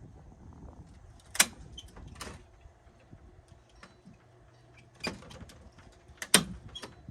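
Four sharp, separate clacks of a hand tool striking wood, in two pairs a little under a second apart, over a low background rumble.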